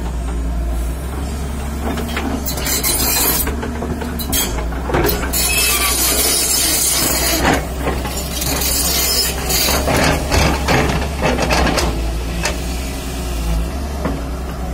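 JCB tracked excavator's diesel engine running under load with a steady low hum, while the bucket digs and scrapes through soil in repeated stretches of rasping, crunching noise.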